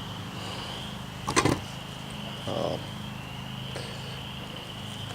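Steady chirring of insects under a low steady hum, with one sharp knock about a second and a half in and a brief low voice-like sound a second later.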